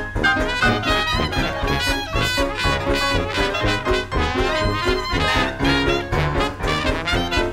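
Background music led by brass instruments, with a steady beat.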